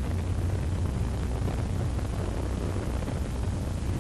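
A steady low rumble with a hiss over it, even throughout, with no separate knocks or tones.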